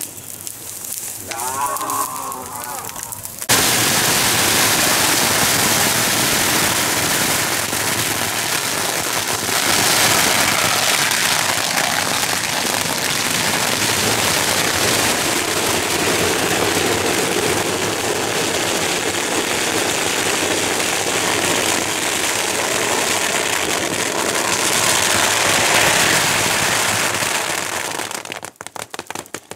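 A long string of firecrackers goes off about three and a half seconds in, crackling densely and continuously at a steady loud level, then dies away just before the end. Before it starts, a few seconds of shouting voices.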